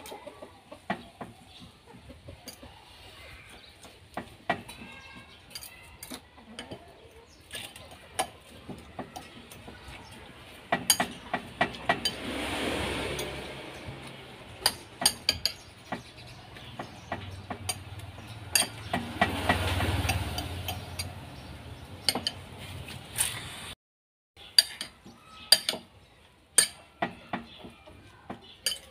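A utensil clinking irregularly against a ceramic bowl while beating eggs with leaves. A rushing noise swells up twice, around twelve and twenty seconds in.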